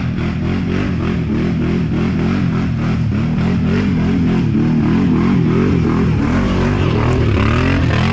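ATV engine revving up and down under load as the quad climbs a steep, muddy dirt slope, its pitch rising and falling again and again with the throttle.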